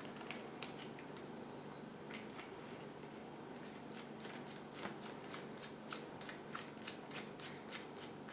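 Faint, irregular light clicks and ticks of small metal fittings being handled, coming more often in the second half, over a low steady hum.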